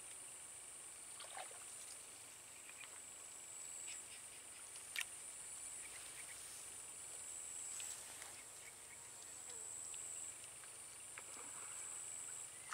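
Steady high-pitched drone of insects, with a few faint ticks and one sharp click about five seconds in.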